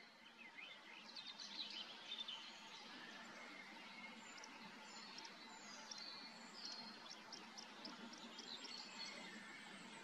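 Male red-backed shrike singing its courtship song: a faint, jumbled run of short high twittering notes, densest between one and two and a half seconds in, over a steady background hiss.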